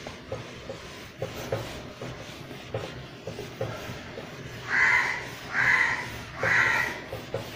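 A crow cawing three times in quick succession about five seconds in, harsh and loud. Under it is the soft rubbing of a whiteboard duster being wiped across the board.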